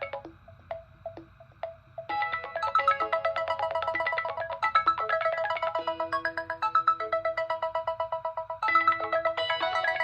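Smartphone ringtone playing a bright electronic melody of quick repeated notes: quiet with a few sparse notes for about two seconds, then the full tune.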